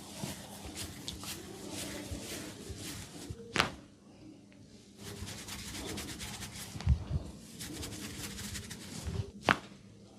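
Oiled hands rubbing and kneading the scalp and hair in a head massage, a steady crackly rustle of fine clicks. It is broken by two sharp snaps, one about a third of the way in and one near the end, and a low thud near the middle.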